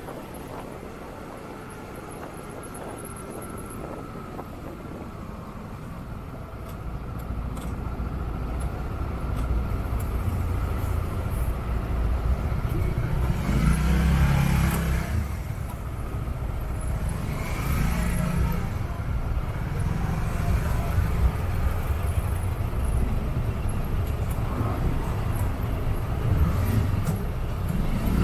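Motor traffic heard from a motorcycle in slow, stop-and-go city traffic: a low, steady rumble of car, van and motorcycle engines close around. It grows louder several seconds in and swells most about halfway through, as vehicles move off nearby.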